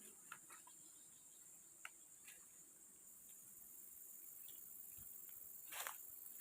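Faint steady high-pitched insect chorus of the forest, with a few scattered faint clicks and a short rustle near the end.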